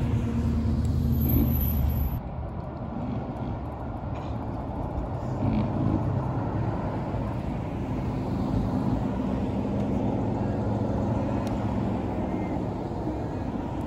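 Cars driving past one after another, their engines running at low, steady revs. Loudest in the first two seconds and again about six seconds in.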